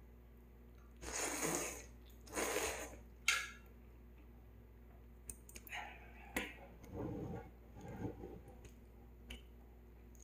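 Instant ramen noodles slurped twice in short bursts, then a sharp click and several small clicks of chopsticks on a metal plate, with chewing sounds.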